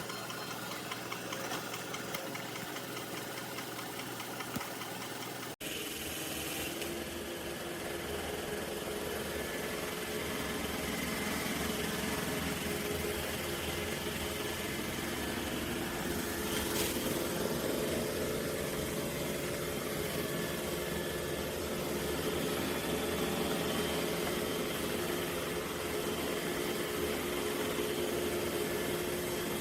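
Robot vacuum running with a steady motor whir; the sound cuts out for an instant about five and a half seconds in and comes back slightly different in tone.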